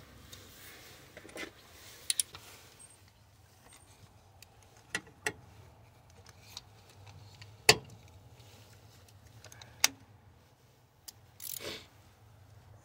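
Scattered metallic clinks and taps of a socket, extension and ratchet being fitted onto a spark plug, with the sharpest clink a little past halfway.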